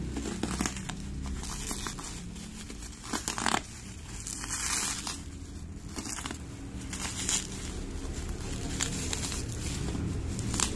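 Plastic courier bag and bubble wrap crinkling in irregular rustles as a parcel is pulled open by hand, with the loudest crackles about three seconds in. A steady low rumble runs underneath.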